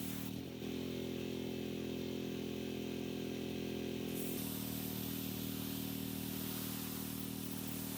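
Gas-engine pressure washer running steadily; its note changes about half a second in and returns about four seconds in.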